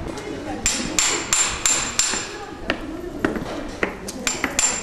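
Hammer blows on metal, a run of sharp strikes about three a second, each with a short high metallic ring.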